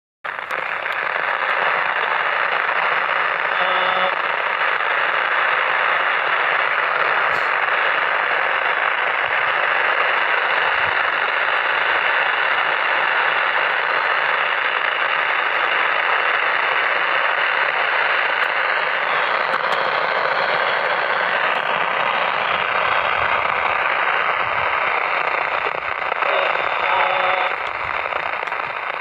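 Transistor radio's loudspeaker giving out a loud, steady hiss of static, with faint snatches of a broadcast voice showing through now and then.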